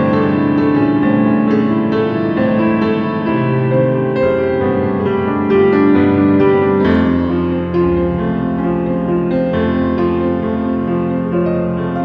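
Background music led by piano, with notes changing every second or so.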